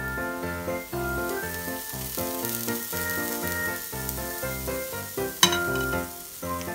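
Banana pancake batter sizzling as it is poured from a ladle into a hot, oiled frying pan, under background music with a steady beat. A sharp click comes about five and a half seconds in.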